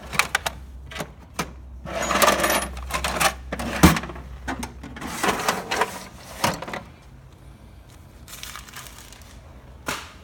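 Metal hand tools clinking and clattering as they are handled, in uneven bursts with a sharp knock about four seconds in. It goes quieter after about seven seconds, with one last click near the end.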